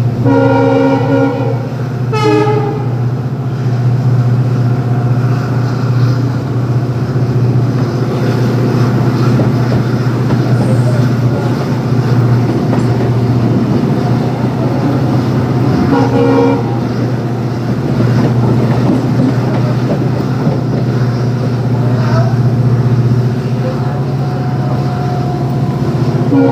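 WDG4 diesel locomotive's horn: a long blast of about two seconds with a short toot right after, then another short blast about sixteen seconds in, over the steady rumble of the train running.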